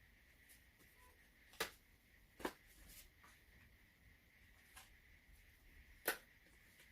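Near silence broken by a few sharp clicks or taps from handling items and packaging, the loudest near the end.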